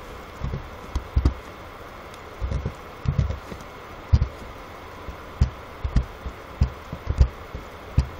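Computer keyboard keystrokes picked up as irregular, dull thuds, about fifteen of them, over a steady background hiss.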